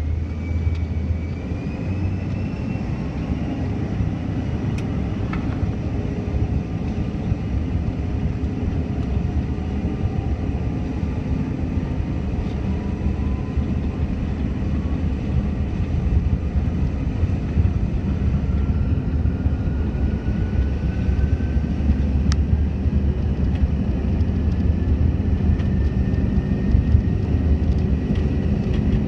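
Bombardier CRJ-900 heard from inside the cabin during its takeoff roll: the two rear-mounted GE CF34 turbofans run at takeoff power with a steady low rumble, and their whine climbs slowly in pitch as the jet accelerates down the runway.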